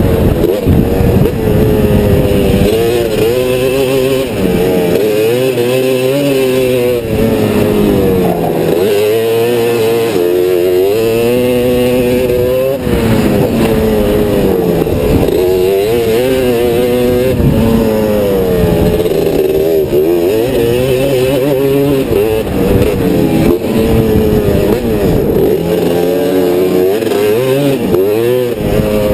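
Honda three-wheeler's engine racing hard, heard up close from an on-board camera: its pitch climbs and drops over and over as the rider accelerates down the straights and backs off into the turns.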